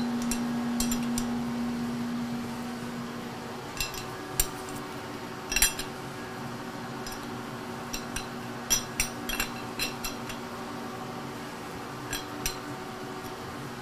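Wrench working the clamp bolts on a milling machine's universal head: scattered metallic clicks and clinks as the head is tightened down. A steady hum fades out about two seconds in.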